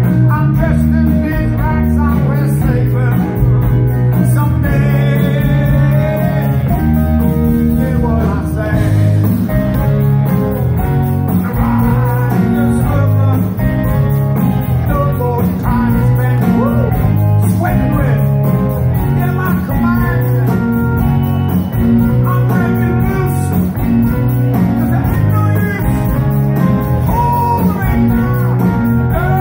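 Live rock band playing: electric bass line, keyboard, electric guitar and saxophone, with a male singer's vocals over the top, heard from the audience.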